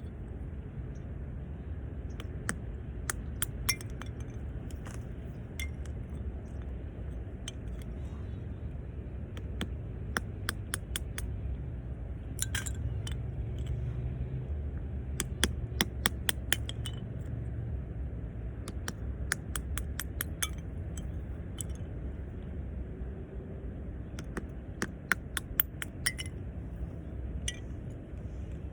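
Wood campfire crackling: irregular sharp pops, some single and some in quick clusters, over a steady low rumble.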